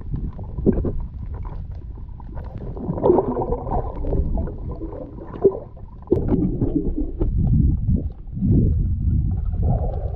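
Muffled underwater gurgling and sloshing with irregular bubbly pops, heard through a camera submerged while snorkelling.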